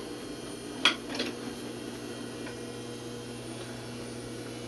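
A sharp click about a second in, then a lighter one, from hands working fabric at a sewing machine, over a steady low hum.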